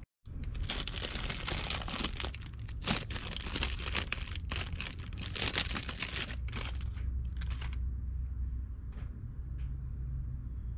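Paper-and-plastic piston-ring packaging being torn open and crinkled by hand, a dense run of rustling and crackling that stops about three-quarters of the way through, followed by a few faint ticks. A steady low hum runs underneath.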